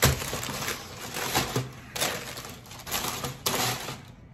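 Tissue wrapping paper in a shoebox crinkling and rustling as it is handled and pulled aside, with several louder crackles.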